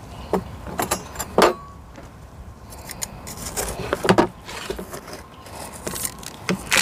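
Light handling clatter while repotting: a plastic pot, a spray bottle and small metal tools tapped, set down and knocking against a plastic basin. It comes as a dozen or so scattered sharp clicks and knocks, the loudest about four seconds in and again at the very end.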